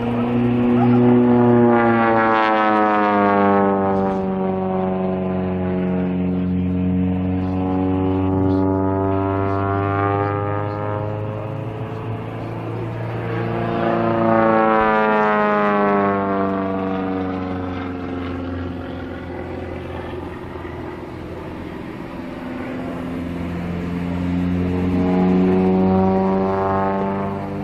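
Zlin 142C aerobatic plane's inverted six-cylinder Walter engine and propeller running hard through aerobatic manoeuvres. The pitch rises and falls again and again as it climbs, dives and turns, loudest about two, fifteen and twenty-five seconds in.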